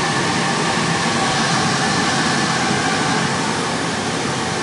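Steady rushing air of a high-power valve linear amplifier's cooling blower, with a few faint steady tones in it.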